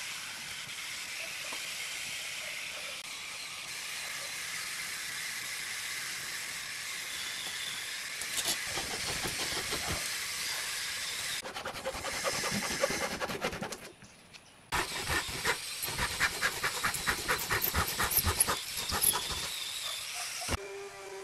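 A hand saw cutting thin plywood in quick back-and-forth strokes, about three or four a second, with a short pause partway through. Before the sawing starts there is a steady hiss.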